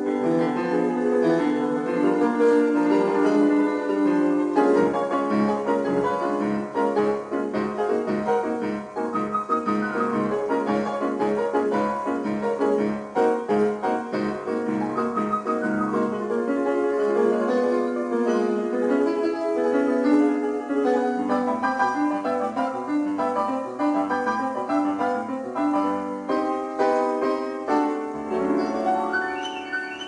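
Background classical piano music, a continuous flow of notes.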